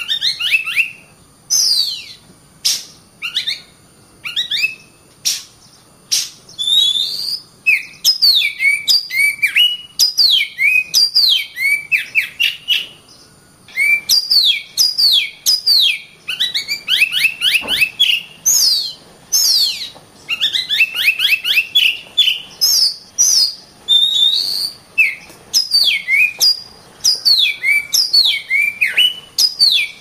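Oriental magpie-robin (kacer) singing a long, varied song of quick whistled notes, many sliding down in pitch, with fast trills and short breaks between phrases.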